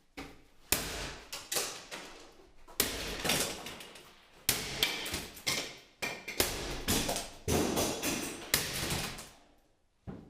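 Hammer blows: about a dozen sharp, irregularly spaced strikes, each dying away over about half a second, stopping shortly before the end.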